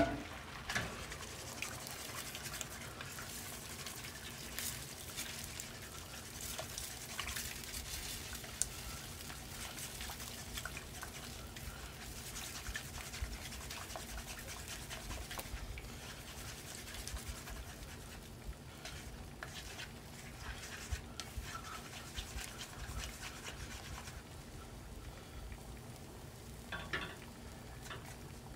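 Beaten egg frying in a hot nonstick pan while wooden chopsticks stir and scrape it around the pan: a steady scratchy sizzle with many small clicks.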